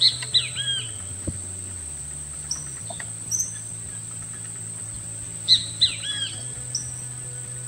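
A songbird calling: a quick phrase of three or four sharp whistled notes that curve downward, given twice about five seconds apart, with a few single high chirps in between.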